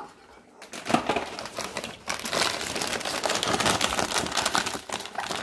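Plastic snack wrapper crinkling as it is handled, starting about a second in and keeping on steadily.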